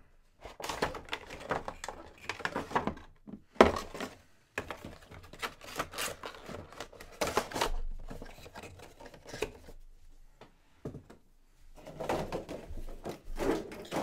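Funko Pop box being handled and opened: cardboard and plastic packaging rustling and crinkling, with irregular clicks and knocks, the sharpest about three and a half seconds in.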